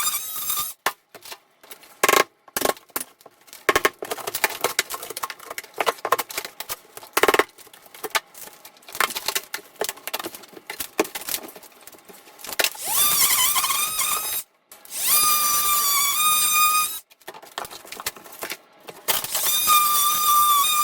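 Irregular knocks, clatters and metallic rattles of tools being handled and struck, then a power tool running in three bursts, its whine rising as it spins up and then holding steady.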